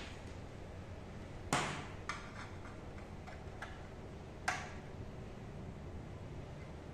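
A few sharp clicks and knocks from handling a metal-cased USB hub on a desk and pushing a USB cable plug into one of its ports. The loudest comes about a second and a half in, another about three seconds later, with fainter ticks between.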